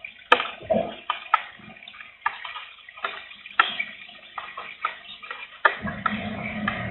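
Raindrops tapping irregularly close to the microphone in light rain. Near the end, a low rumbling noise swells in.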